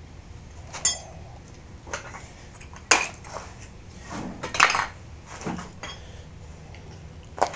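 Metal pressure-washer parts and hand tools being handled and set down on a concrete floor: a few separate sharp clinks and knocks, the loudest about three and four and a half seconds in.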